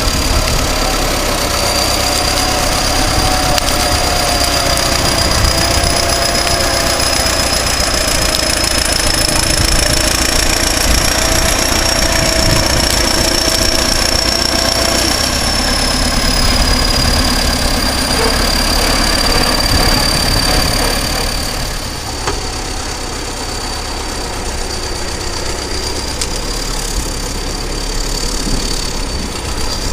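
Caterpillar D7 bulldozer's diesel engine running with a steady high-pitched turbocharger whistle over its rumble. The whistle rises slightly in pitch midway and then eases back down, and the engine gets a little quieter about three-quarters of the way through.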